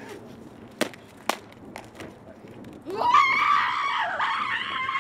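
Two sharp knocks about half a second apart, then, about three seconds in, a woman's long, high-pitched scream that holds for about two seconds.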